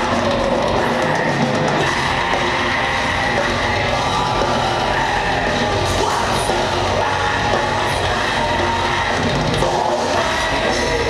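Live heavy rock band playing loud through the hall's PA: electric guitar, bass, keyboards and drum kit, with the singer shouting into the microphone.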